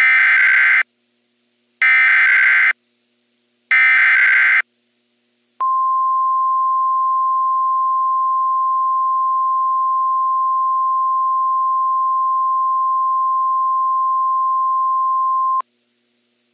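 Emergency Alert System SAME header: three short bursts of screeching digital data tones, about two seconds apart. After a short pause comes the NOAA Weather Radio 1050 Hz warning alarm tone, one steady high tone held for about ten seconds, which signals that a warning broadcast follows.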